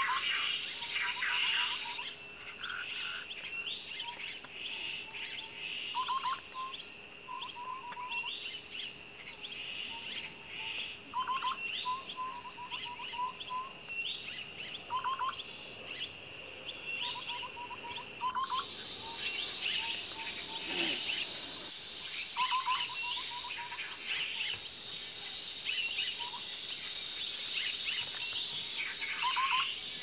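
Common mynas chirping: quick runs of short chirps repeated every second or two, with a steady high-pitched drone behind them.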